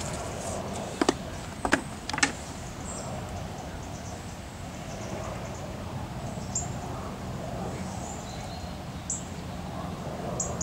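Steady outdoor background noise with a low hum. Three sharp clicks about one to two seconds in come from small objects being handled on a picnic table, and a few faint, short high chirps follow.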